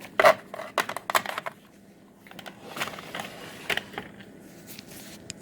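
Plastic cassette cases clicking and clacking against each other as they are handled and set down, a series of sharp knocks with the loudest just after the start.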